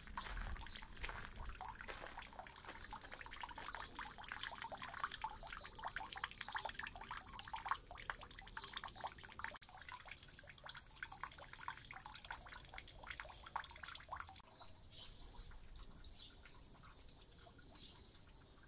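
Water trickling from a bronze dragon spout into the stone basin of a shrine's hand-washing fountain (chozuya), with a fast, irregular patter of small splashes and drips. It grows fainter near the end.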